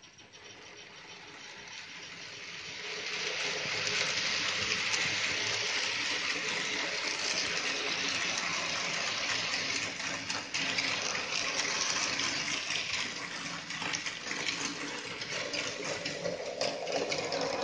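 N gauge model train running on the track: a steady hiss of wheels and motor with fine rapid clicking, growing louder over the first four seconds and then holding steady.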